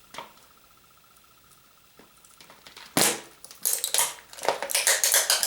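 Tape being peeled and torn off a giant surprise egg and its shell being pulled open: a sharp snap about three seconds in, then crackling and rustling.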